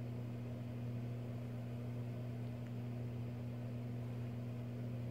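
Steady low hum with a faint hiss under it, holding an even level throughout.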